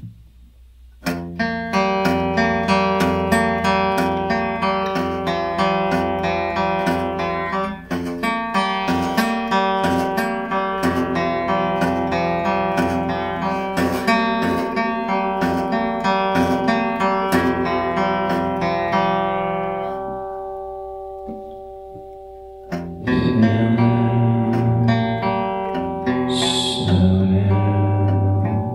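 Acoustic guitar playing a blues, picked and strummed, starting about a second in. Near two-thirds of the way through, a chord rings out and fades, then the playing starts again with heavier bass notes.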